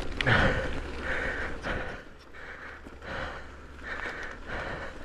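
A man breathing hard, with heavy in-and-out breaths coming about once a second: winded from a fast downhill mountain-bike run.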